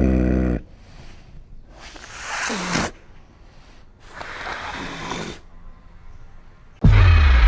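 A large animal calling: a deep call dies away just after the start, then come two breathy, hoarse exhalations of about a second each, then another loud deep call near the end.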